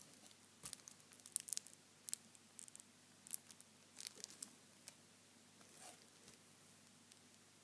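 5 Gum chewing-gum packaging being handled: scattered sharp crinkles and clicks, several a second at first, thinning out after about five seconds.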